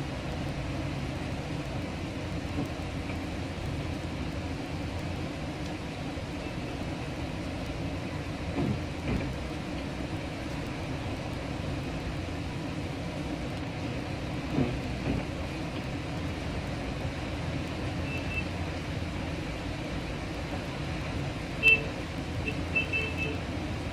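Steady rumble of a car driving slowly through a flooded street, heard from inside the cabin. A few knocks come through it, and there is a sharper thump near the end.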